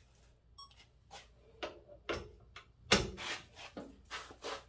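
Tool handling at a steel bench vise: a short electronic beep from a digital torque meter's button near the start, then a series of metal clicks, knocks and short scrapes as a torque wrench is fitted onto the torque adapter, the loudest knock about three seconds in.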